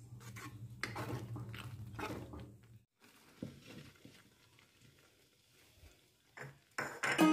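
A silicone spatula stirring sticky, syrupy vermicelli in a nonstick pan: a few seconds of soft scraping and squelching strokes over a steady low hum. It stops suddenly, leaving near quiet with a couple of faint knocks.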